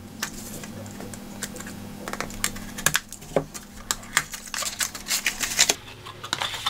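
A small cardboard box being opened by hand: a knife slitting its seal, then the card flaps being pulled open and the box handled. It sounds as a run of irregular light clicks and taps that get busier about five seconds in.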